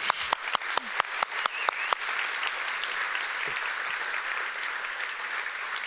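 Large audience applauding: a few separate claps at first, filling out within about two seconds into steady, dense clapping from the whole hall.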